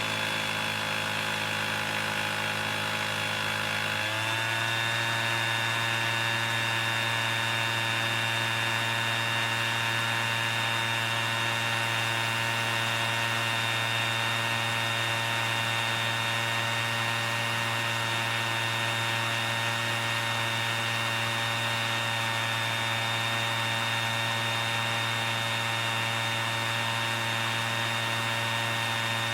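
A steady buzzing drone of many held tones. About four seconds in it shifts slightly, then runs on unchanged.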